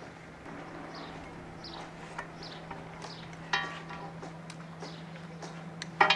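Seizing wire being threaded through and worked on a stainless steel anchor swivel: small clicks and short scrapes of wire on metal, with two sharper ringing clinks of metal on metal, about halfway and near the end. A steady low hum runs underneath.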